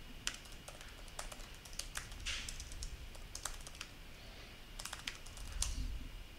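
Typing on a computer keyboard: an irregular run of quick keystrokes with short pauses, as a terminal command is entered.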